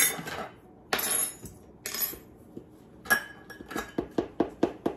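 Metal measuring cup scraping and clinking against a stainless steel mixing bowl as flour is scooped and knocked out: two short scrapes, then a run of quick taps in the second half.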